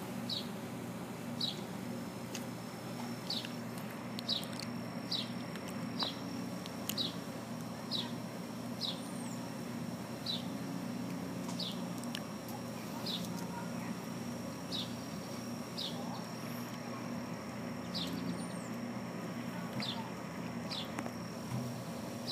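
A small bird chirping over and over: short single chirps that drop in pitch, about one a second. A thin, steady high tone runs under most of it.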